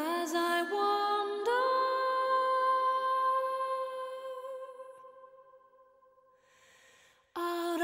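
Background music: a singing voice rises into a long held note that slowly fades away, and after a short gap a new phrase begins near the end.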